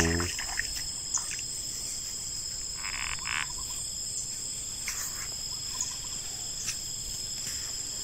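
Insects in and around the flooded paddy buzzing steadily at two high pitches, with a frog croaking in a short burst about three seconds in and again briefly near five seconds.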